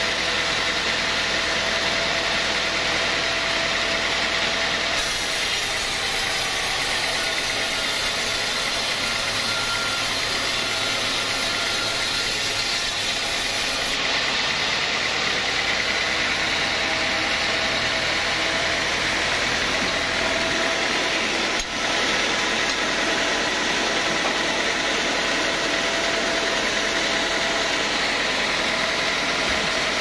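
Vertical band sawmill running steadily, its blade cutting through teak wood. The sound changes abruptly about five and fourteen seconds in.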